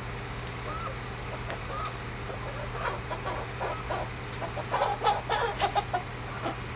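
Chickens on their roost clucking softly as they settle in, with a few quiet rising trills at first. The clucking turns into a busier run of short calls from about three seconds in and is loudest around five seconds.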